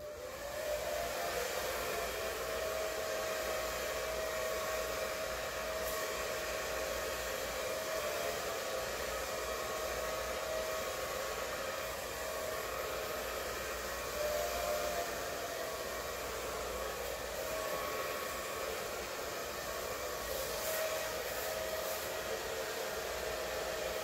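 Hand-held hair dryer blowing steadily: a rush of air over a held whine that wavers slightly in pitch now and then. It comes on right at the start.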